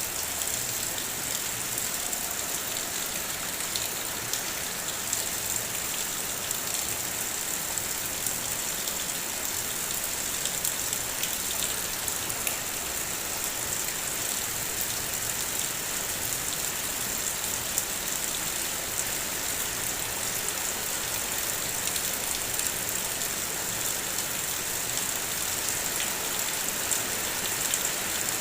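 Steady rain falling, with scattered sharp raindrop ticks over an even hiss.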